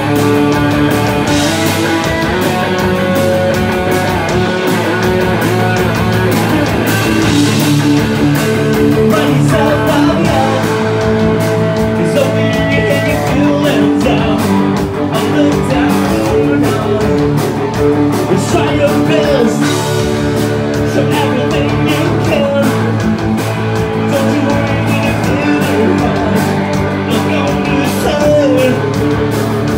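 Live rock band playing, led by electric guitar over bass guitar and drums, with voices singing into microphones in the later part.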